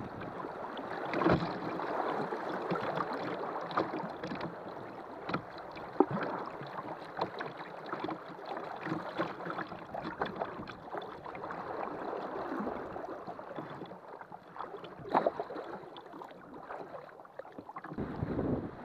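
Shallow riffle water rushing and splashing around a kayak's hull as it runs through, with scattered sharp knocks. A few louder knocks come about a second in, about six seconds in and about fifteen seconds in.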